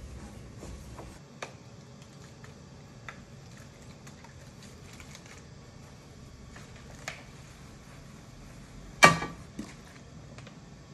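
Cleaning the ink disc of a Chandler & Price platen press by hand: quiet rag-wiping and handling noise with scattered small clicks. About nine seconds in comes one sharp knock, the loudest sound, then a smaller one just after.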